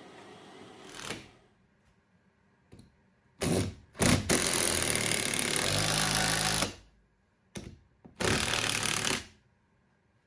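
Power saw cutting plywood in three short bursts, the longest about three seconds, each starting and stopping abruptly.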